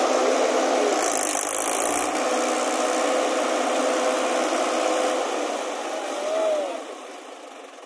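Mahindra 475 DI tractor's four-cylinder diesel engine running hard to pull a loaded trolley stuck in a rut. The engine note holds steady, rises and falls briefly about six seconds in, then drops away near the end.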